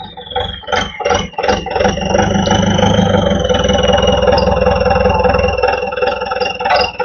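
Forklift engine running under load with a steady high hydraulic whine as it lifts a heavy load on chains. A few knocks and clanks come in the first second or so.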